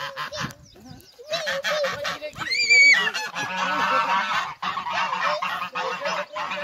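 Domestic white geese honking repeatedly in quick succession, with one loud, high-pitched cry about two and a half seconds in.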